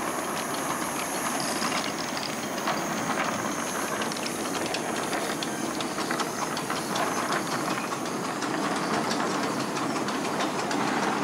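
Miniature steam locomotive running with its train: a steady hiss of steam with many quick clicks of wheels on the track.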